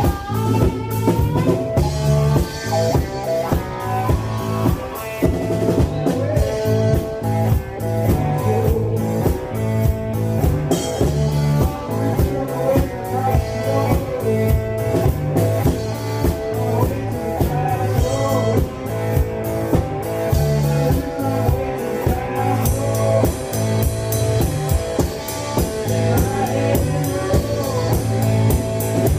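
Live blues band playing: an electric cigar box guitar leads over a steady drum-kit beat, with a second electric guitar.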